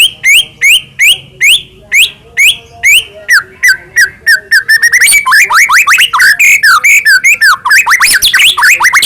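White-rumped shama (murai batu) singing in full song. It opens with a run of loud, rising whistled notes about two a second, then about five seconds in breaks into a faster, varied stream of sweeping notes.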